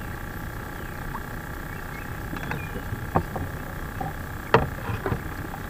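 Knocks and clatter of a fishing rod being handled and pulled from its holder in a small boat, loudest about three quarters of the way through, over a steady hum.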